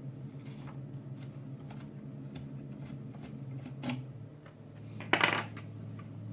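Small metal tools being handled, giving light metallic clicks and clinks, with a louder clatter about five seconds in.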